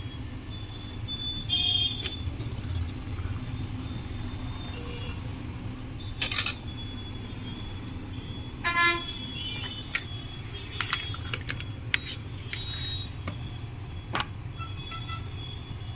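Metal spoon scraping and clicking against a steel kadai and a plastic lunch box as fried rice is served, over a steady low hum. There are two short toots, one near two seconds in and one near nine seconds in, and a run of sharp clicks later on.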